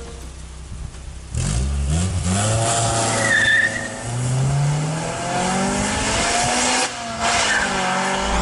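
Honda CRX del Sol VTi's 1.6-litre VTEC four-cylinder accelerating hard as the car pulls away. About a second in the engine note comes in loud and climbs with the revs, twice breaking off briefly and starting lower again at the gear changes.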